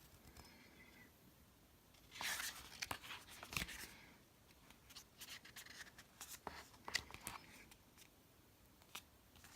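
Faint rustling and scattered light clicks of small objects being handled by hand, busiest about two to four seconds in.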